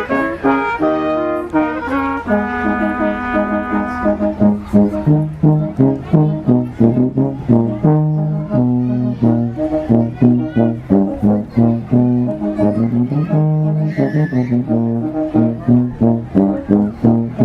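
Music: held chords at first, then a melody of short, evenly paced notes over a moving bass line.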